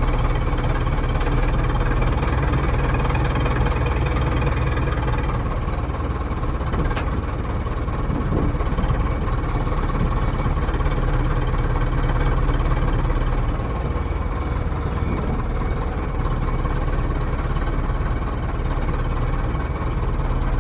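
Tractor engine running steadily, driving the hydraulic ram that tips a fully loaded trailer to dump straw muck.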